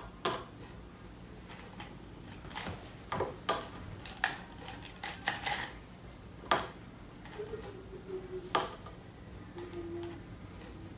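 Mike and Ike candies dropped by hand into a small glass jar, a scatter of light clicks and clinks, about ten over the stretch.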